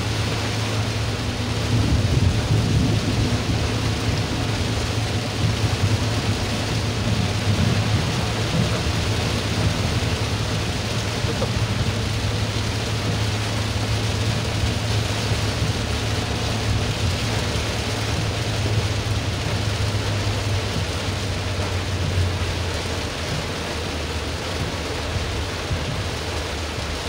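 Heavy rain beating on a car's roof and windscreen, heard from inside the cabin, over the steady low drone of the car driving on the wet road. A louder low rumble of thunder swells about two seconds in.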